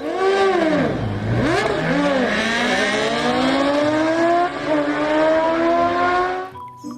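Racing motorcycle engine revving: the pitch dips and rises a few times, then climbs in one long run as it accelerates, cutting off near the end.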